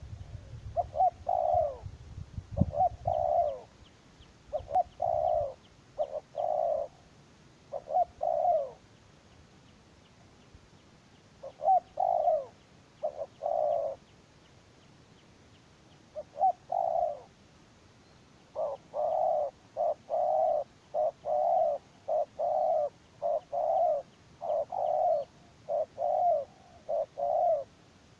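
Spotted dove (terkukur) cooing over and over in short phrases with pauses between them, then a faster, steady run of coos over the last third.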